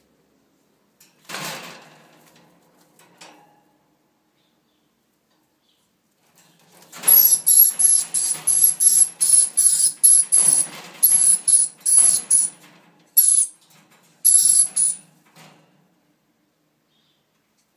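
Dusky lory giving a loud run of harsh, shrill screeches, about three a second, for several seconds, broken by two short pauses near the end. A single shorter call comes about a second and a half in.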